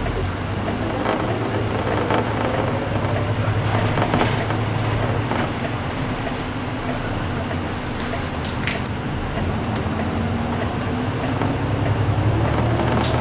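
City bus running in service, heard from inside the cabin: a steady low engine and road hum whose pitch rises near the start and again near the end as the bus speeds up, with occasional short clicks and rattles.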